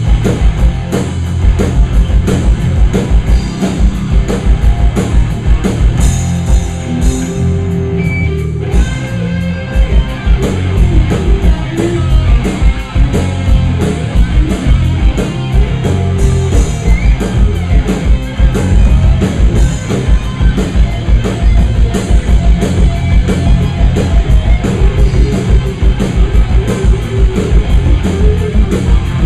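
Rock band playing loud and heavy, with guitars, bass and fast, driving drums. About a quarter of the way in the drums let up briefly while held guitar notes ring, then the full band comes back in.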